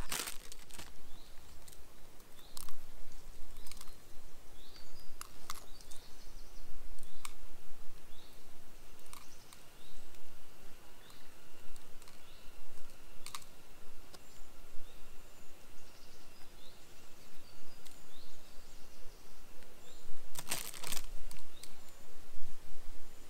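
Camp cooking handling sounds: scattered clicks and clinks of utensils and cookware, with a louder clatter about twenty seconds in, over small birds chirping.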